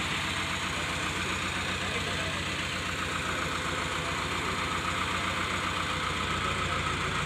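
Diesel engine of a mobile crane running steadily at idle, a fast, even low beat.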